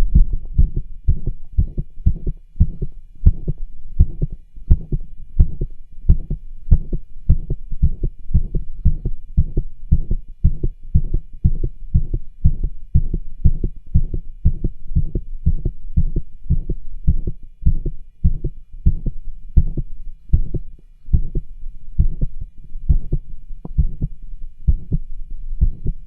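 Heartbeat heard through a cardiology stethoscope: a steady, regular train of lub-dub beats, made stronger by exercise, with rubs and murmurs audible between the beats.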